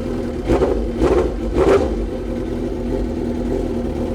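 The 2002 Suzuki GSX-R1000 K1's inline-four engine is idling deep and loud with its exhaust end can removed, just after a cold start. It is blipped three times in quick succession in the first two seconds, then settles back to a steady idle.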